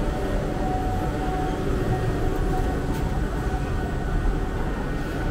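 Gondola lift machinery running, heard from inside the cabin: a steady low rumble with a faint whine, and a single light click about three seconds in.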